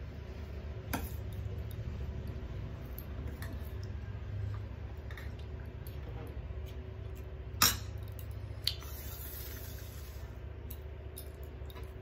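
Eating by hand from metal plates: soft squishing as rice is mixed with egg curry, and a steel serving spoon clinking against a steel bowl and plates, the sharpest clink about seven and a half seconds in and another a second later. A steady low hum lies underneath.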